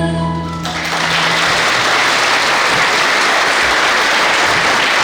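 A choir's held sung chord ends about half a second in, and an audience breaks into steady applause.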